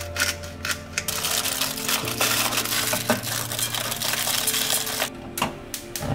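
A few clicks of a spice grinder, then aluminium foil crinkling and crackling for several seconds as it is folded and crimped shut around salmon fillets, over background music.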